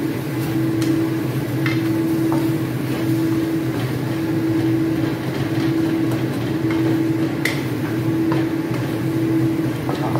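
Wooden spatula scraping and tapping against a stainless steel wok as sliced luffa and egg are stir-fried, giving a few scattered clicks. Underneath runs a steady mechanical hum, the loudest sound, pulsing about once a second.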